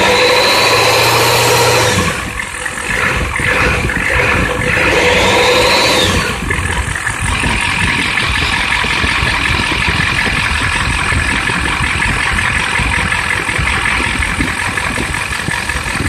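7.3-litre IDI International V8 diesel engine revved twice, the pitch rising and falling each time: once in the first two seconds and again about four to six seconds in. It then settles back to a steady idle.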